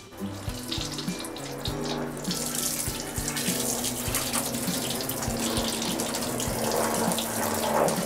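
Tap water running through a Samsung washing machine's corrugated rubber pump hose and splashing into a stainless steel sink, getting louder about two seconds in. Water spurts out through several small holes in the hose, the leak behind the machine dripping water underneath.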